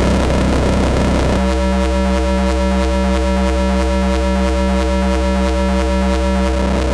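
Astrogorus synthesizer playing a rhythmic drone: a steady low drone under a mid tone pulsing about three times a second. About a second and a half in the noisy hiss drops away, leaving a cleaner stack of tones, and the noise comes back near the end.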